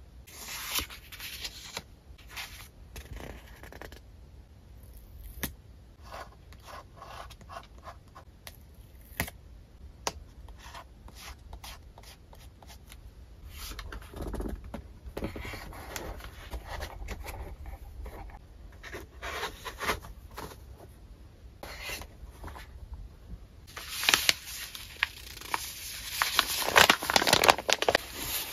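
Paper and packaging being handled by hand: scattered light taps, clicks and rustles. About 24 seconds in, it turns to a louder, dense crinkling of a kraft paper bag as printed paper sheets are pulled out of it.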